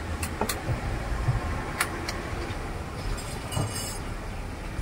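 Four sharp metal clinks in the first two seconds over a steady low rumble of street traffic, with a brief rasping scrape a little after three and a half seconds.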